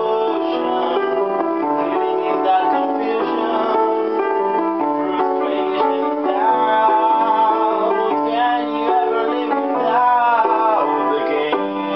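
Upright piano being played, steady chords and melody, with a man's voice singing along over it.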